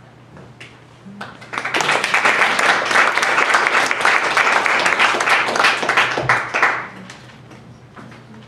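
Audience applauding: the clapping swells in about a second and a half in, holds for some five seconds and dies away near the seven-second mark.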